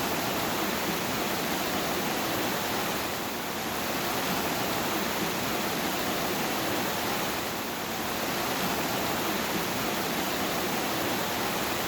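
Steady heavy rain, a dense even hiss with no separate drops standing out, swelling and easing slightly every few seconds.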